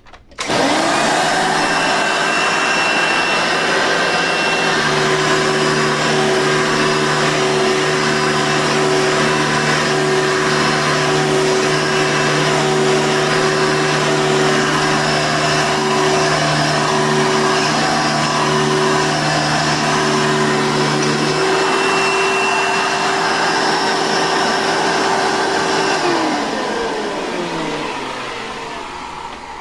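Blue Hoover softbag upright vacuum cleaner switched on, its motor spinning up to a steady whine. It runs for about 25 seconds, then is switched off and winds down with a falling pitch.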